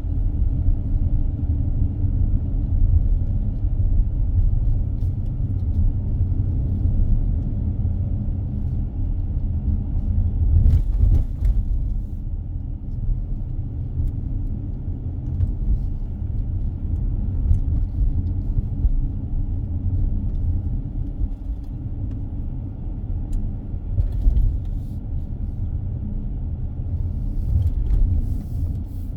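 Car driving along a road: a steady low rumble of engine and tyre noise, with a few brief clicks about eleven seconds in and again near the end.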